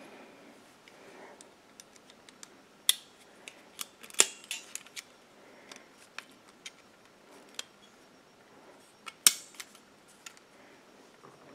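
Scattered light metallic clicks and ticks of a Briggs & Stratton piston ring expander's jaws and a piston ring being handled and seated in them, with a few sharper clicks among them.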